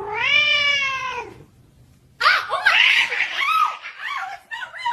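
Cat meowing: one long drawn-out meow that rises and then falls, then after a short pause a quick run of shorter rising-and-falling cries.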